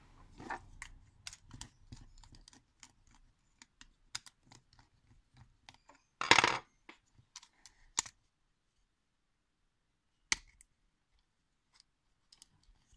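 Clicks, taps and light rattles of a plastic Duplo locomotive chassis and its small electric motor being handled. About six seconds in there is a brief, louder scrape as a screwdriver works at the frame, and sharp single clicks follow near eight and ten seconds.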